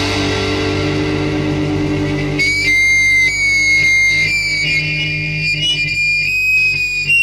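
Rock band instrumental: a sustained electric guitar chord rings out, then about two and a half seconds in a high, sliding lead guitar line takes over.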